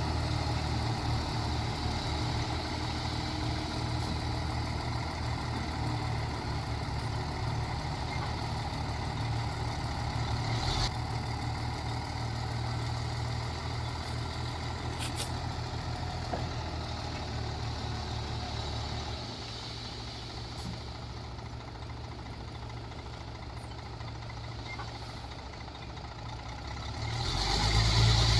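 Heavy diesel engine of earthmoving machinery running steadily, with a few faint clicks; it eases off about two-thirds of the way through, then swells louder near the end.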